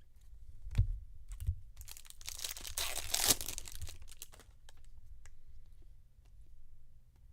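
A foil trading-card pack wrapper being torn open and crinkled for about two seconds, after two light knocks.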